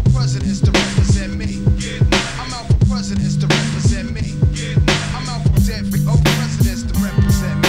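Background music with a steady beat of about two drum hits a second over a deep bass line.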